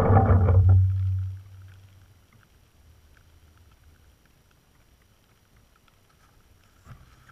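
Brushless motors of a DJI Flame Wheel F330 quadcopter winding down after landing: a low hum that fades out about a second and a half in. After that it is nearly quiet, with faint scattered ticks.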